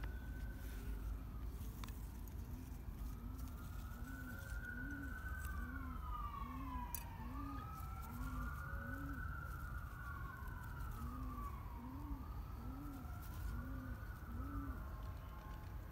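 A dove cooing in a quick run of short, even coos, about two a second, pausing once midway. Under it a siren wails slowly up and down.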